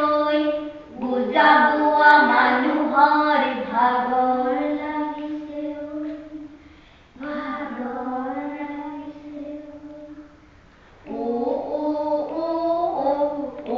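Sung recitation: voices chanting slowly in long held notes, in three phrases with short breaks about seven and eleven seconds in.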